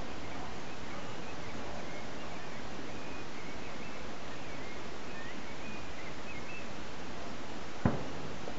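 Outdoor ambience: a steady background hiss with faint bird chirps through the middle. A single sharp knock comes near the end.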